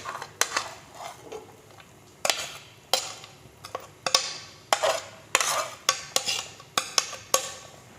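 A spoon stirring soup in a pot, knocking and clinking against the pot at irregular intervals, about twice a second, with soft scraping between the knocks.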